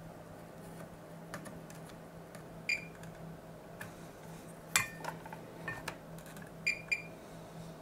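A handful of small, sharp metallic clicks and clinks, the loudest just under five seconds in and a quick pair near the end, as soldering tools and parts are handled on a circuit board, over a steady low hum.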